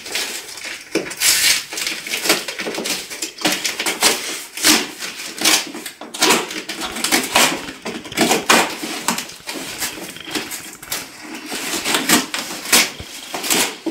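A knife cutting along the taped seam of a long cardboard box, with irregular rasping rips of packing tape and cardboard scraping and rustling.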